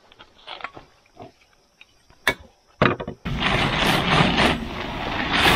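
Nylon of a red pop-up tent rustling loudly as it is twisted and folded down, starting suddenly about three seconds in. Before that there are only a few faint clicks and one sharp tap.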